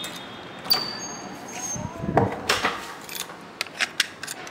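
Hotel room door being unlocked and opened: a sharp click of the lock about a second in, then a dull thump and clatter of the handle and door around the middle, followed by several small clicks and knocks.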